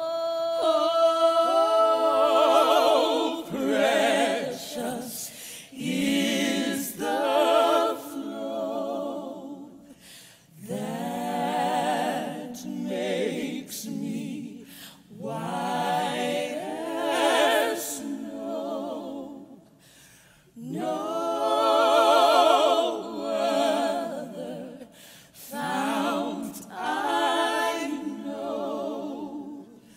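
Women's voices singing a slow a cappella gospel hymn, unaccompanied, with vibrato on the long held notes and phrases a few seconds long broken by short pauses for breath.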